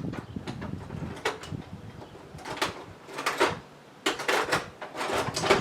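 Clattering and clinking of hand tools being handled while rummaging for a screwdriver: a series of separate sharp knocks, with a denser run of them about four seconds in.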